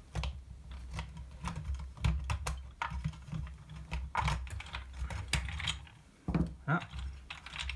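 Small hard-plastic parts of a toy tractor's rear track assembly being handled and fitted by hand: irregular light clicks and taps, over a steady low hum.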